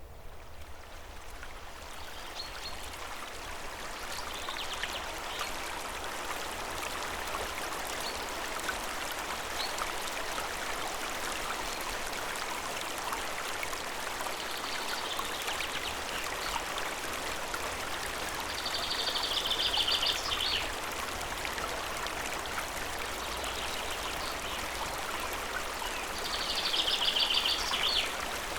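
Water of a stream or waterfall rushing steadily, with birds chirping now and then; two louder bursts of bird song come in the second half.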